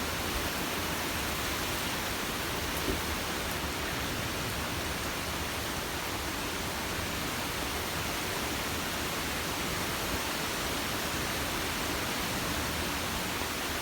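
Steady rushing storm noise, an even hiss that holds without breaks.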